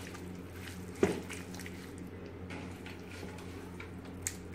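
Hands squelching raw chicken pieces through a thick, wet spice marinade in an aluminium pot, with one sharp knock about a second in. A steady low hum runs underneath.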